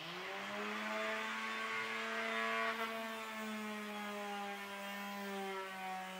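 Electric orbital finishing sander with a square pad, spinning up at the start and then running steadily with a hum, its sanding pad hissing against a wooden tabletop.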